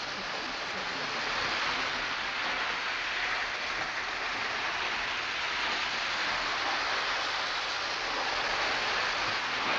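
Lionel O gauge electric model trains running on the layout, a steady, even rushing noise with no breaks or knocks.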